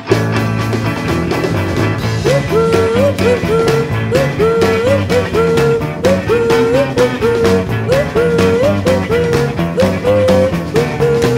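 Background rock-style music with a steady beat; a short melodic phrase with a rising slide repeats over and over from about two seconds in.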